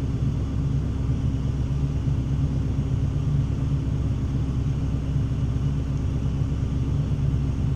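Diesel engine of a forestry machine running steadily while its hydraulic boom holds the grapple head against a standing tree.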